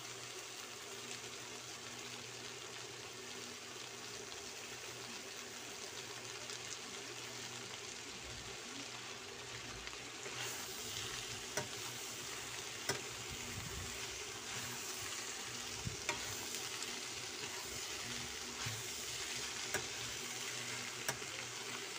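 Chopped cabbage, carrots and chicken sizzling in a frying pan, a steady hiss. From about halfway through, a spatula stirs and tosses the vegetables, with occasional clicks against the pan.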